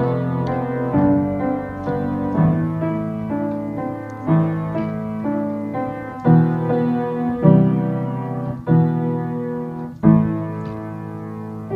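Solo piano playing a slow piece: chords and melody notes struck about every one to two seconds, each left to ring and fade before the next.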